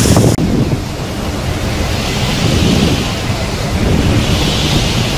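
Cyclone winds blowing hard with driving rain, the gusts buffeting the microphone.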